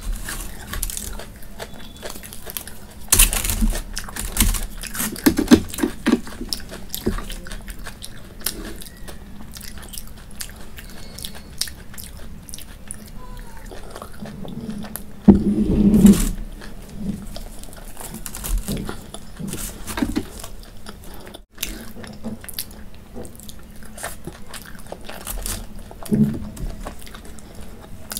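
A person chewing close to the microphone while eating Indian flatbread with curry by hand: irregular wet mouth sounds and clicks, with louder spells of chewing about three seconds, fifteen seconds and twenty-six seconds in.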